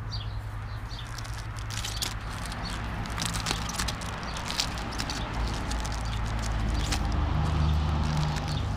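Irregular rustling and light clicks of first aid items being handled and packed into a PVC roll-top dry bag, over a steady low rumble.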